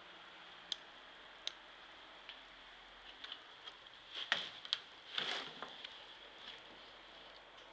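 A few faint, sharp clicks from the handheld camera and infrared thermometer being handled. From about four to five and a half seconds in comes a louder burst of rustling and knocks as the camera is moved about.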